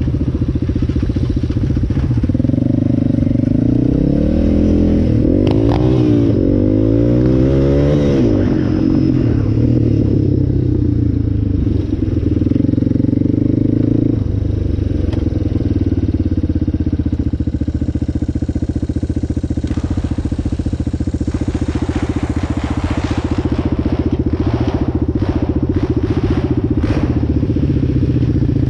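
Yamaha Raptor 700 ATV's single-cylinder four-stroke engine running as it rides, the revs rising and falling over the first several seconds, then holding steady. Scattered short clicks and scrapes come near the end.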